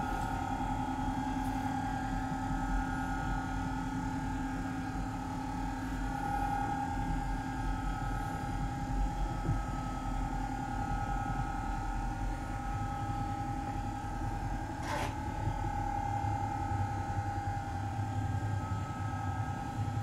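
Stairlift drive motor and gearbox running steadily with a hum and whine as the chair travels up the stairs. There is a single click about fifteen seconds in. The motor cuts out at the very end when the chair reaches the top.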